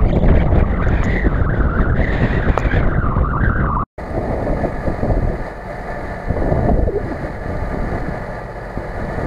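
An off-road 4x4's engine runs as the vehicle drives over a snowy track, its pitch wavering up and down, with wind on the microphone. About four seconds in, the sound cuts off suddenly and gives way to a quieter, steadier rumble.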